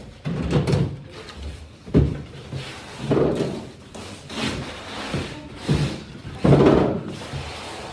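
Drawers, doors and containers being handled: about six separate knocks and clattering bumps over several seconds.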